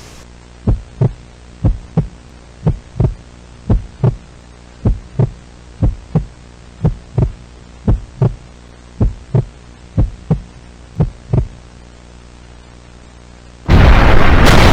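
Heartbeat sound effect: eleven paired lub-dub thumps, about one a second, over a steady low hum. About a second before the end a sudden loud blast of noise cuts in, like an explosion.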